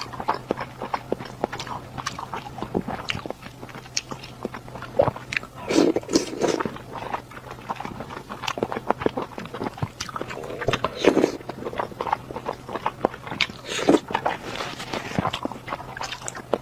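Close-miked eating sounds: a person biting and chewing skewered food from a chili-oil cold pot, with irregular wet mouth clicks and smacks and a few louder mouthfuls. A faint steady low hum runs underneath.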